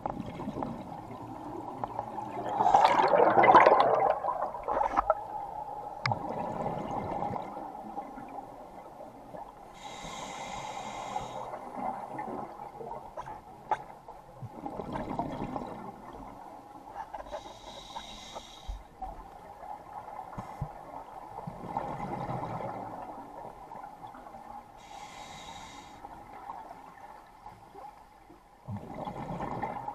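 Scuba diver breathing through a regulator underwater: a short hiss on each inhale and a gurgling rush of exhaled bubbles, about four breaths, with the loudest bubble burst about three seconds in.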